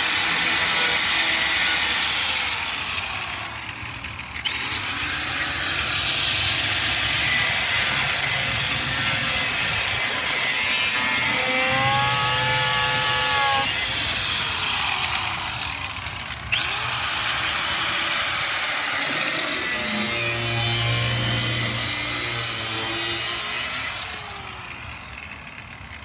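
Angle grinder with a cutting disc grinding away the edges of a cut-out in a bus's fiberglass side wall. It is eased off and run back up partway through, with a falling then rising whine, and spins down near the end.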